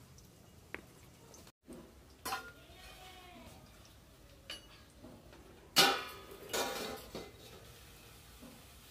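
Metal lid clanking against a steel wok as it is lifted off covered, steaming vegetables. The clank is loudest about six seconds in, with a few lighter metal clinks before and after it.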